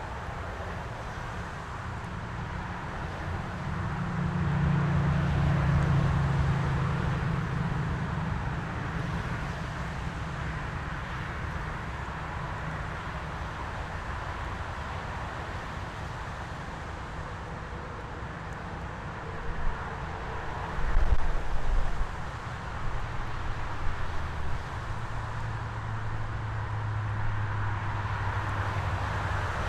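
LX25 portable band sawmill running, its engine humming steadily while the band blade cuts along a wide white pine log. The engine gets louder for a few seconds early on. Several sharp knocks come about two-thirds of the way through.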